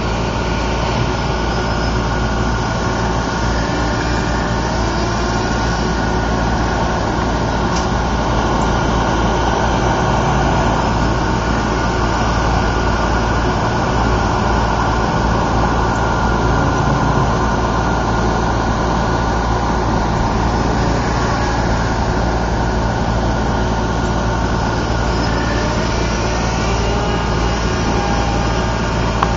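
Electric motor and propeller of a small RC pusher airplane droning steadily in flight, with a steady low rumble underneath and a faint shifting whine near the end.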